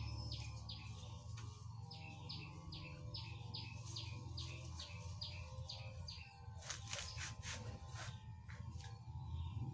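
A songbird repeating a short falling chirp about twice a second for the first six seconds. Around seven seconds in, about six sharp knocks of a cleaver chopping laksa (kesum) leaves on a plastic cutting board.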